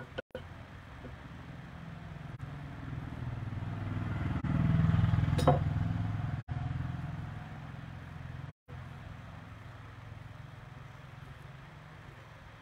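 A motor vehicle's engine passing by: a low engine hum grows louder, peaks about halfway through, then fades away. There is a short sharp click near the loudest point.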